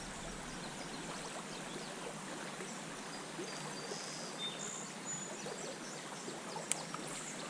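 Shallow, rocky river running over riffles: a steady rushing of water.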